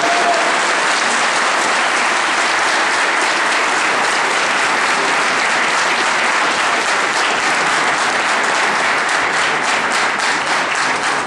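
A large crowd applauding loudly and steadily.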